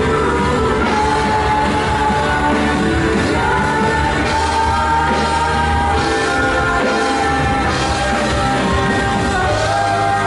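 Band music with singing, in a rock style, with held melody notes over a steady bass.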